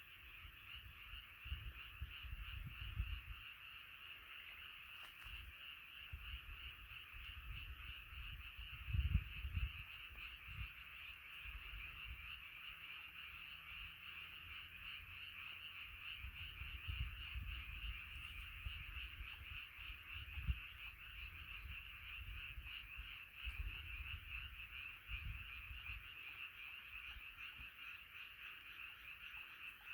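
A dense chorus of many frogs calling continuously, their overlapping croaks merging into one unbroken sound. Low rumbles come and go underneath, the strongest about nine seconds in.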